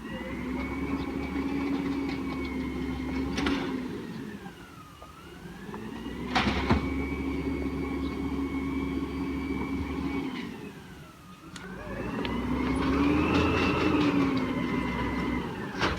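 Peterbilt 320 garbage truck's diesel engine speeding up for the hydraulic packer, holding a steady high pitch for a few seconds, then dropping back, three times. A few sharp knocks and bangs come in along the way, the loudest about 3.5 and 6.5 seconds in.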